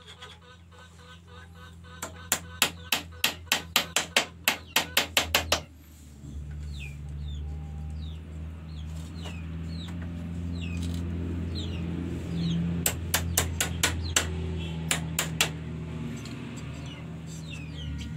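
Rapid sharp taps, about four or five a second for a few seconds, as a bamboo windmill's striker mechanism is worked by hand, with a second short run of taps later. From about six seconds in a steady low hum runs underneath, with short falling bird chirps over it.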